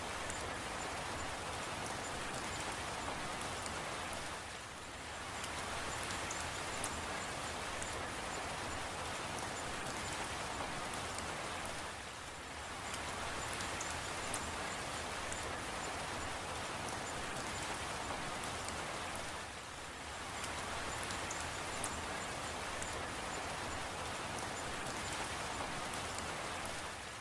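Steady rain falling, an even hiss with scattered small drop ticks. The sound dips briefly and comes back about every seven and a half seconds.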